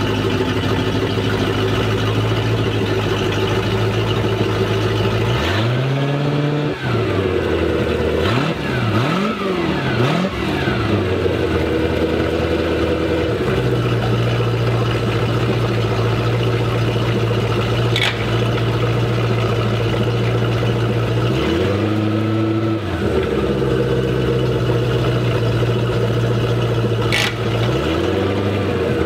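A MerCruiser 5.0-litre V8 stern-drive engine running out of the water on a flushing hose, with water discharging through the prop hub. It idles steadily, with quick throttle blips that rise and fall in pitch: one about six seconds in, a cluster of several a few seconds later, and more revs a little past twenty seconds and again near the end.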